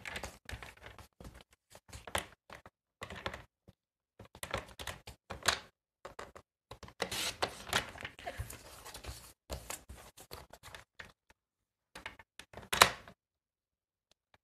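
Paper trimmer cutting card tags: irregular clicks, taps and short scraping strokes as the blade slides and the card is handled, with one sharper click near the end.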